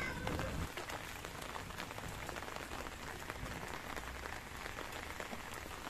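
Steady rain falling, heard as an even hiss dotted with many small drop ticks.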